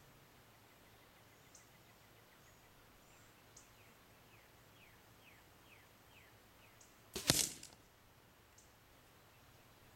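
An arrow hitting the target about seven seconds in: one sudden sharp hit with a short tail after it, as the arrow goes through the hanging key ring into the target.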